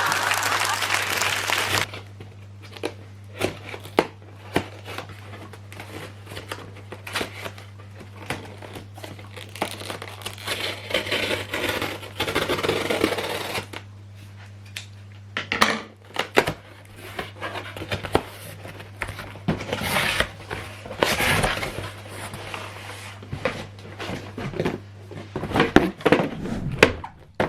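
Parcel packaging being opened by hand: plastic and cardboard crinkling, rustling and tearing, with scattered clicks and knocks. A steady low hum runs underneath.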